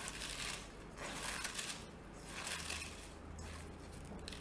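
Salted, shredded cabbage being squeezed and rubbed by hand in a stainless steel bowl to soften it: crisp crunching and rustling in repeated strokes.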